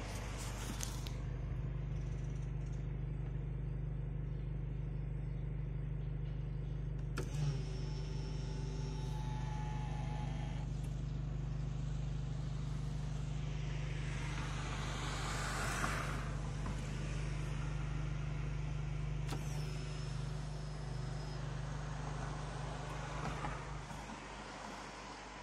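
Power-folding door mirror motors of a Volvo V40 whining, heard from inside the cabin: once for about three seconds about a third of the way in, then again for about two seconds past the two-thirds mark, each starting with a click. Under them the car's 1.9 diesel engine idles steadily, and in the middle a wide swell of noise rises and fades.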